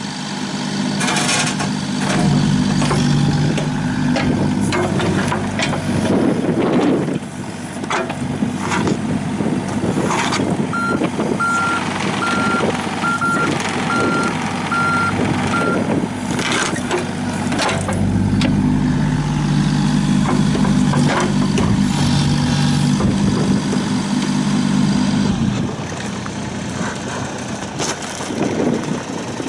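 John Deere 27D mini excavator's three-cylinder diesel engine running and working, its note rising and falling as it takes load twice. Midway a warning alarm beeps about six times, evenly spaced, and there are scattered clanks and knocks.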